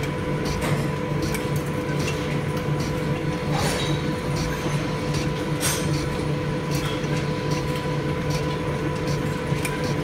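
A 1904 lathe running, its four-jaw chuck spinning a cast block while the tool faces it: a steady mechanical hum with irregular light ticks and clinks.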